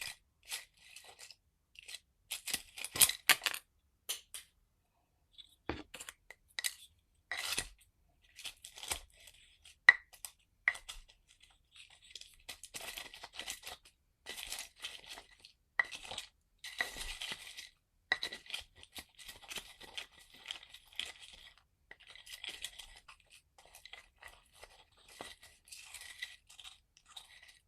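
Herbal medicine ingredients being ground by hand: irregular scraping and crunching strokes with sharp clinks of the grinding tool against its vessel.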